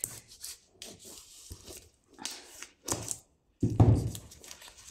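Hands cutting and peeling the plastic film off a cardboard box of coloured pencils. Irregular scratchy rubbing and rustling, with a louder handling bump about four seconds in.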